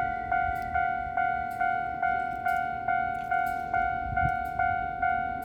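Japanese level-crossing warning bell ringing: the same electronic ding repeats evenly, about two and a half times a second.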